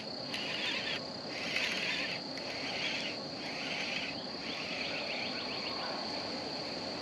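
Insects calling: a steady high-pitched buzz with a raspy call repeating about once a second, and a quick trill about four seconds in.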